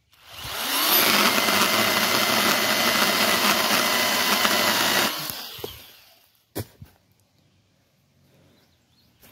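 Ryobi 18-volt One+ HP brushless pruning chainsaw with a 6-inch bar: the electric motor and chain spin up quickly, run steadily for about four seconds, then wind down. A single sharp knock follows about a second later.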